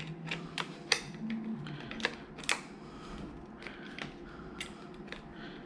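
Sharp plastic clicks and rattles from a detachable plug head being worked onto and off a power adapter brick. The clicks come quickly at first and thin out after about three seconds.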